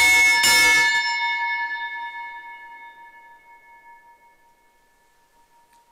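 Altar bell struck at the elevation of the chalice after the consecration, marking the consecration of the wine. Two quick strikes, then a clear ringing tone that slowly fades over about five seconds.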